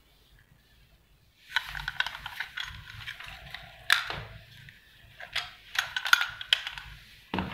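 Hard plastic clicking and clattering of a Makita 6201D 9.6 V cordless drill being handled and set down among other cordless drills on a table, starting about a second and a half in.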